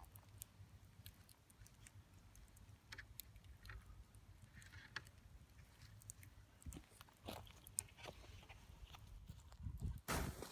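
Wood campfire crackling faintly, with scattered small pops over a low steady rumble. A louder, brief burst of noise comes near the end.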